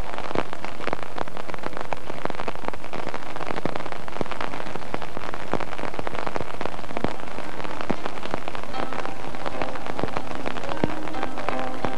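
Steady rain falling, a dense crackling patter of drops. Faint music with held notes comes in about nine seconds in.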